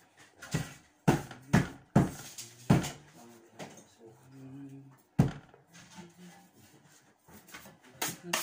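Irregular sharp knocks and taps from hand work on a wall, about six in the first five seconds and one more near the end, with a faint low hum coming and going between them.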